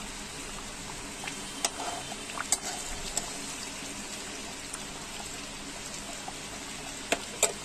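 Hot oil sizzling steadily around chicken kachoris deep-frying in a kadai while a slotted spoon bastes oil over their tops. A few sharp clicks and pops stand out, two of them close together near the end.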